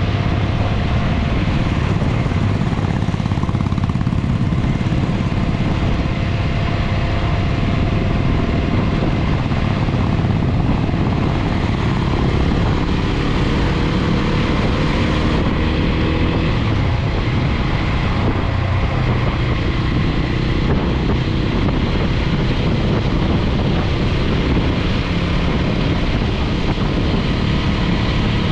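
TVS Apache RTR 200 4V motorcycle's single-cylinder engine running as the bike is ridden, heard from on board with a steady, heavy low rumble.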